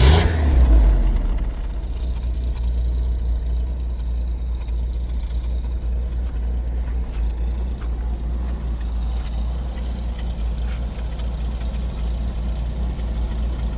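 1981 Holden VH Commodore's engine idling steadily with a low rumble, after a louder moment right at the start. It is running after a fuse repair that was meant to restore the gauges and the charging.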